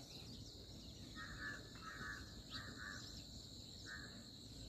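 Faint field ambience: insects keep up a steady high-pitched drone, while a bird gives a few short calls between about one and four seconds in.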